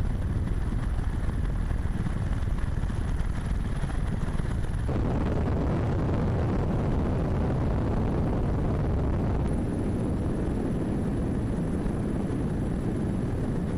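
Steady, loud engine rumble, heaviest in the low end, whose sound changes abruptly about five seconds in and again near ten seconds.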